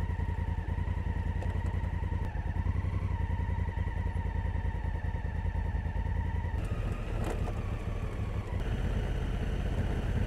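Honda Africa Twin CRF1000L's parallel-twin engine running steadily at low revs on a downhill dirt road. A steady high whine sits above the engine and drops away for about two seconds past the middle.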